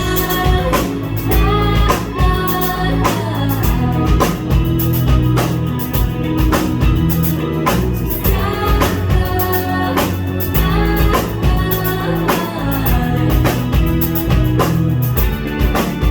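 Live indie rock band playing: a singer's voice over electric bass, electric guitar and a drum kit keeping a steady beat.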